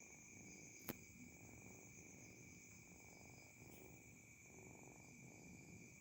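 A cat purring faintly and continuously. A steady high-pitched whine runs underneath, and there is a single sharp click about a second in.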